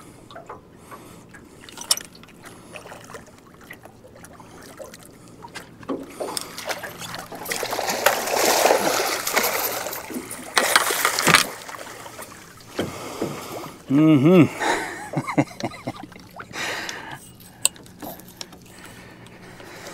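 Water splashing and sloshing at the side of the boat as a big catfish is netted in a landing net. The splashing is loudest from about six to eleven seconds in, then dies down.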